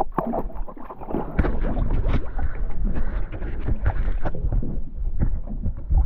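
Water gurgling and sloshing with irregular knocks, heard muffled with the high end cut off.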